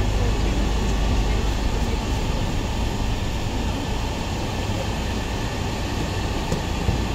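Steady low rumble of a van's engine heard inside the cabin.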